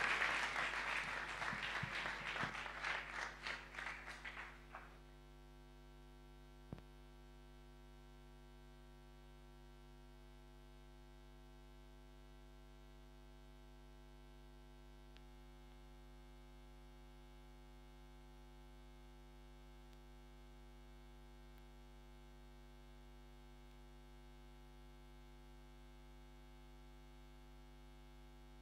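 Audience applause dying away over the first five seconds, ending in a few scattered claps. Then a steady electrical mains hum, with one sharp click about seven seconds in.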